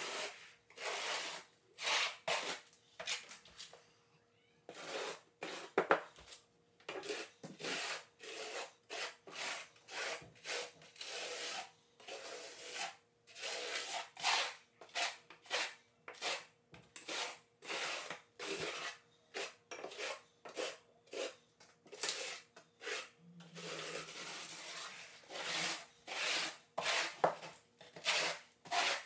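Trowel scraping mortar across a plywood subfloor in repeated short, uneven strokes as the mortar is spread and pressed flat with the trowel's flat side.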